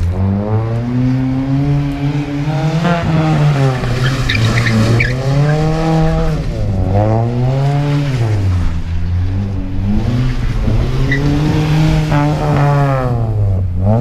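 Car engine revving up and down over and over, its pitch rising and falling about five times as the car is driven hard through tight turns, with a brief tyre squeal about four to five seconds in.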